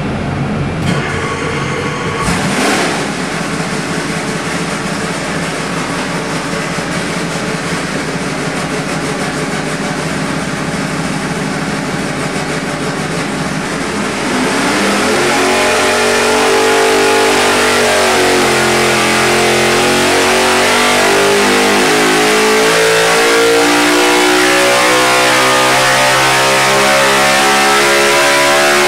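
358-cubic-inch small-block Chevrolet race engine running on an engine dynamometer. It holds a steady speed for the first fourteen seconds or so, then is pulled under load in one long sweep, its pitch climbing steadily and getting louder as it passes about 8,400 rpm near the end.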